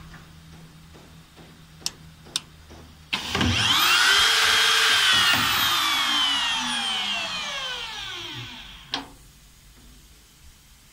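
Two sharp clicks, then about three seconds in a high-speed milling motor on a drainage-slot milling machine starts abruptly and runs with a high whine. Its pitch then falls steadily as it winds down over about five seconds, ending near a final click.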